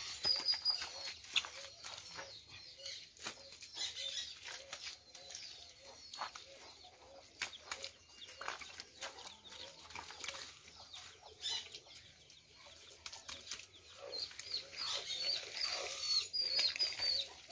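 Hands packing wet mud into a wooden adobe brick mould: irregular short slaps, knocks and scrapes as the mud is pressed in and the top smoothed. Hens cluck and small birds chirp in the background.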